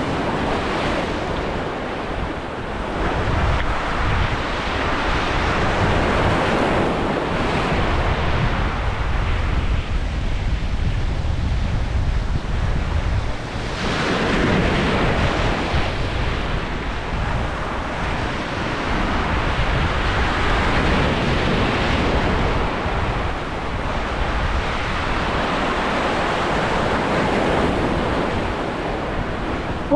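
Ocean surf breaking along the shore, a continuous rush that swells and eases every several seconds, with wind buffeting the microphone.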